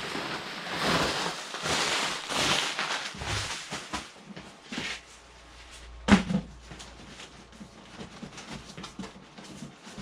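Cardboard packaging being pulled apart and handled, a rustling scrape through the first few seconds, then a single knock about six seconds in and small clicks and rustles after it.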